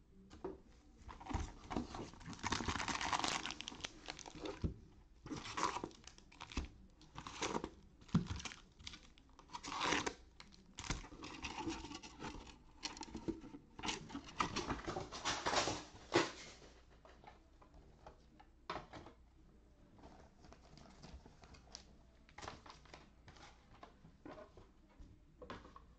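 Cardboard trading-card hobby box being torn open, then foil card packs crinkling as they are pulled out and stacked. Dense tearing and rustling for about the first sixteen seconds, then only faint occasional taps and rustles.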